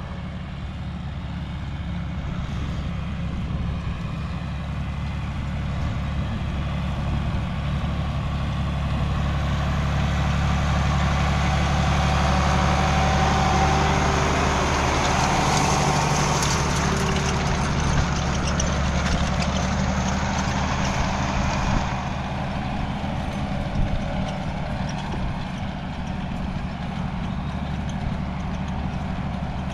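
A farm vehicle's engine running steadily while pulling hay wagons, with road and rattle noise growing louder through the middle and easing off suddenly about 22 seconds in.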